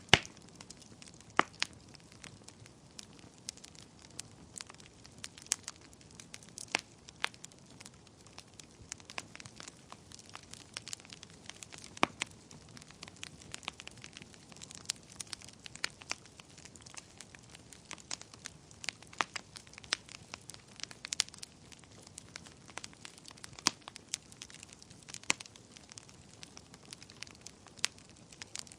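Wood fire burning in a fireplace: irregular sharp crackles and pops over a soft steady hiss of the flames, with the loudest pop right at the start.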